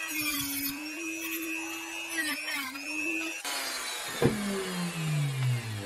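Handheld rotary tool with a sanding drum running at speed, sanding down the tip of a bicycle spoke, the grinding rising and falling with the contact. About three and a half seconds in it is switched off and spins down, its pitch falling steadily, with a single knock shortly after.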